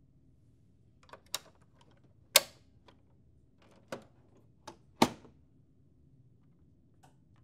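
Sharp plastic clicks and snaps of a Lexmark MX72x/MX82x printer's automatic document feeder covers being closed and latched after a new feed roller is fitted, about seven in all, with the loudest snaps about two and a half and five seconds in.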